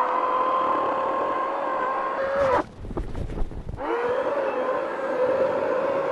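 Greenworks Pro 80V brushless cordless chainsaw whining at a steady high speed as its chain cuts through a log. The motor winds down and stops about two and a half seconds in, then spins back up about a second later and runs steadily through the next cut.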